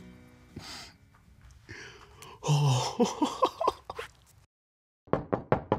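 A man chuckling and giggling with breathy gasps, then, after a brief silence, a quick run of about six knocks on a door near the end.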